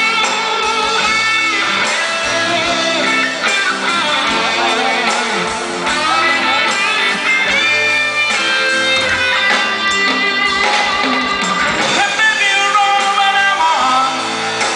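Live band playing a song, with a lead vocal sung into a microphone over electric guitar and the full band.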